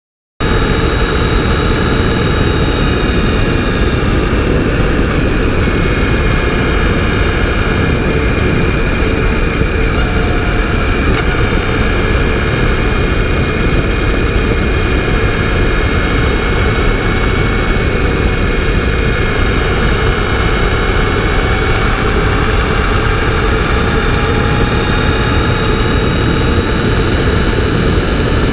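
Honda Gold Wing F6B motorcycle at steady cruising speed: wind rush and road noise on a low-mounted camera beside the front wheel, with the flat-six engine running underneath and a few thin steady high whines. The sound cuts in abruptly just after the start.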